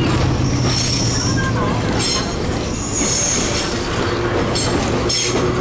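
1915 wooden streetcar No. 265 running along its track: a steady low hum under the rumble of the wheels on the rails, with several short high-pitched wheel squeals.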